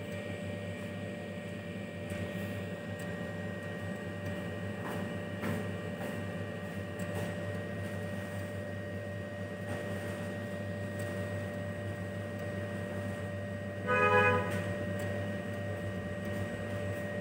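Steady low machine hum with a faint thin whine over it and a few soft clicks. About fourteen seconds in, a short, loud pitched sound with several tones together lasts about half a second.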